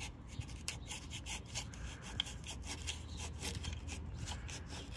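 Surface-prep towelette in its packet rubbed quickly back and forth on rear window glass: a run of short scrubbing strokes, a few a second, over a low steady rumble.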